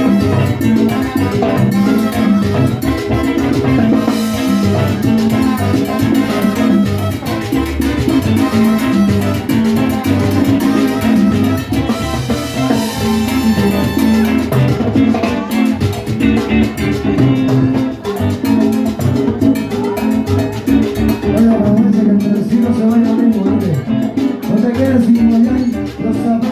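Salsa band playing, with drums and percussion keeping a steady groove under the other instruments.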